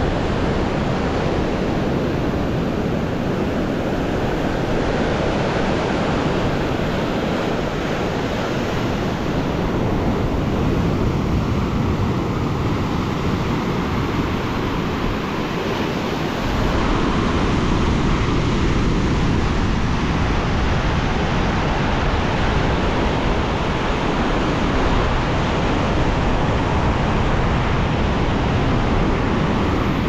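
Black Sea storm waves breaking and washing against a seawall in a steady loud rush of surf, with wind buffeting the microphone. The low rumble grows stronger about halfway through.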